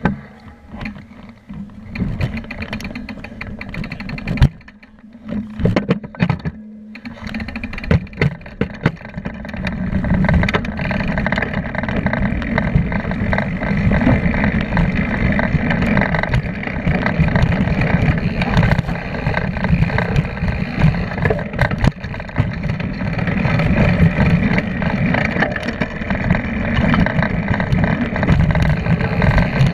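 Mountain bike riding down a dirt trail. For the first several seconds it goes slowly, with separate knocks and clatters over rocks. From about ten seconds in there is a loud, steady rush of wind on the camera microphone, mixed with tyre noise and rattling as speed builds.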